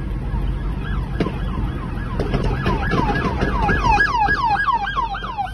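Emergency vehicle siren in a fast yelp, a falling wail repeated about four times a second, starting about two seconds in and growing louder, over the steady rumble of car road noise.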